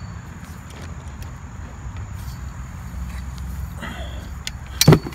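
Handling noise from the black metal frame poles of a golf practice net: a low steady rumble with a brief rustle, then one sharp clack just before the end.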